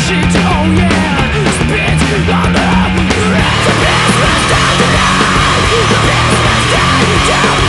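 Stoner/punk rock band playing loud and live, with distorted electric guitars over bass and drums. About three and a half seconds in, a held, higher distorted note comes in over the top.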